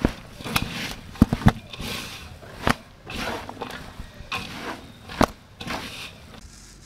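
A hand kneading and tossing sliced onions with gram flour in a large metal basin, the mix lightly dampened with water: a moist rustle with each stroke, and a few sharp clicks.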